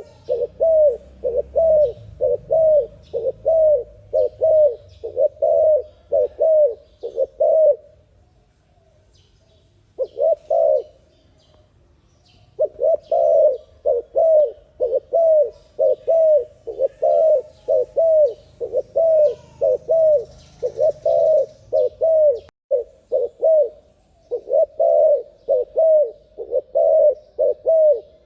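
Spotted dove (terkukur) cooing in a fast, steady run of short coos, about two a second, breaking off around eight seconds in and resuming a few seconds later. Faint chirps of small birds sound behind it.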